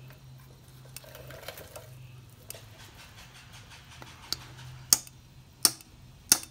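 Small hammer tapping a brass fuel inlet elbow into a Harley-Davidson Keihin CV carburetor body to seat it: light, sharp metallic knocks, four of them about two-thirds of a second apart, starting about four seconds in.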